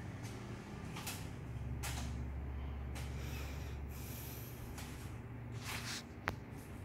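Plastic cassette tape cases being handled and shifted: a few short scrapes and clacks, with one sharp click near the end, over a low steady hum.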